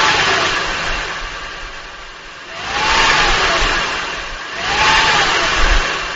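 Acura TL's 3.2-litre V6 revved in three short blips, its pitch climbing and falling back each time, between spells of idle. This is an engine whose owner reports a knock after a cold start, which the dealer and Acura put down to normal valve-train noise.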